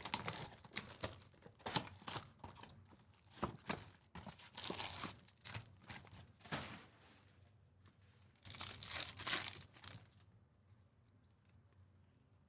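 Foil wrappers of trading card packs being torn open and crinkled, in irregular bursts of rustling, with quieter stretches between them and near the end.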